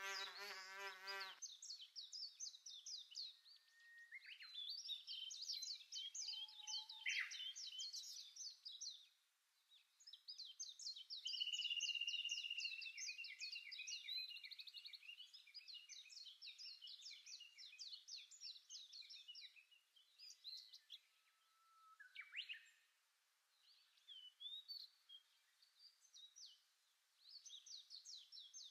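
Rapid, high-pitched chirping trills from animals, in bursts of many short strokes with brief quiet gaps between them, and a short steady whistle about eleven seconds in.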